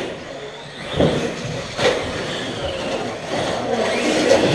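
Radio-controlled off-road cars racing on a dirt track: motors whining up and down, with sharp clacks of the cars hitting the track about a second in, just before two seconds and near the end.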